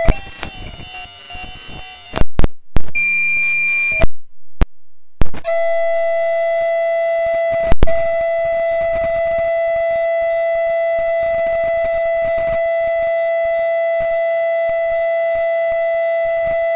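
Audio feedback: a loud, steady electronic tone held at one pitch with overtones. In the first few seconds it is broken by crackles, clicks and a brief dropout, then it holds steady apart from one sharp click about eight seconds in.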